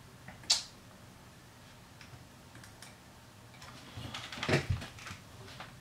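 A single sharp computer mouse click about half a second in, then a few soft clicks and knocks from a hand on the keyboard and desk around four seconds in.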